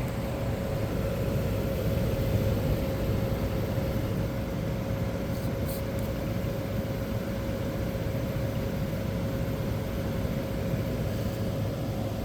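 1985 White Westinghouse 5900 BTU window air conditioner running with its case off, the blower fan moving air and the rotary compressor running and starting to cool. A steady hum and rush of air with one held tone.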